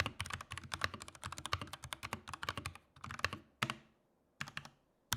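Typing sound test on an Akko 3068B Plus 65% mechanical keyboard with its stock Akko CS Jelly switches: rapid keystrokes for the first three and a half seconds, a brief pause with a couple of strokes, then typing again at the very end.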